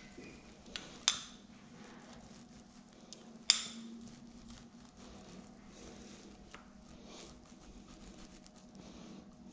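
Two sharp knocks of hard items against each other, about two and a half seconds apart, over faint handling ticks and a steady low hum.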